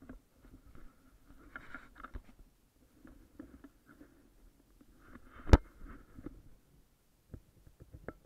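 Handling noise on a helmet camera as it is fitted to the helmet: soft scuffs and rustling, with one sharp knock about five and a half seconds in.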